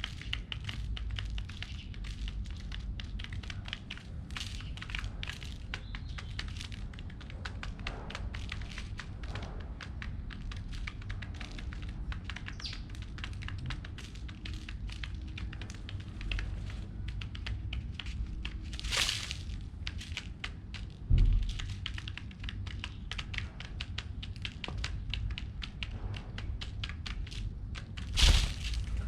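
Pigeons pecking at scattered seeds: a steady patter of small clicks and taps over a low rumble, with a few louder thumps and rustles, the loudest near the end.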